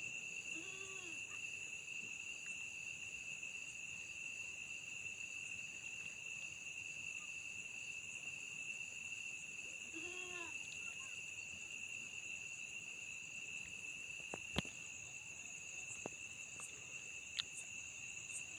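Crickets and other night insects trilling in a steady, high, unbroken chorus. A short, faint call is heard about a second in and again about ten seconds in, and there are a couple of faint clicks near the end.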